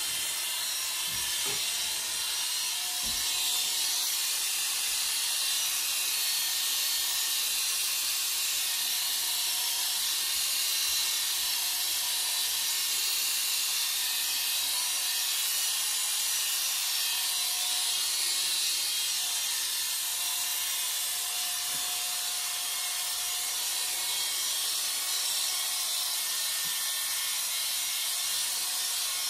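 Corded electric hair clippers running steadily while shaving short stubble off a scalp, giving an even high hiss with a faint motor hum underneath.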